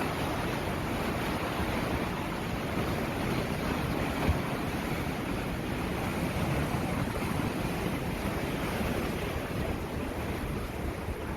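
Flash-flood torrent rushing through a wadi: a steady, dense rushing of water without a break.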